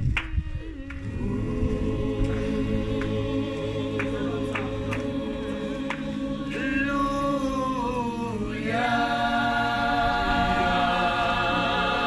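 Unaccompanied gospel choir singing slow, held harmonies. About seven seconds in the voices slide down together, then swell into a fuller, louder chord.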